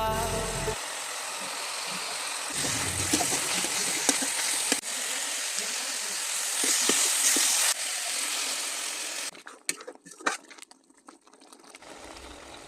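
Food sizzling in a hot pan, with the clinks and scrapes of stirring; the sizzle stops about nine seconds in, leaving only a few clinks.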